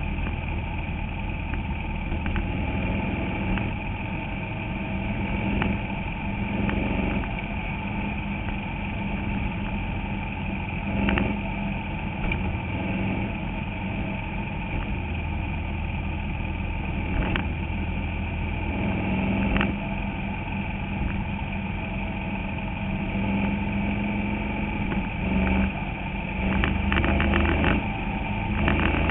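Bandolero race car's small Briggs & Stratton V-twin engine running steadily, heard from inside the cockpit, with occasional short rattles and knocks, a cluster of them near the end.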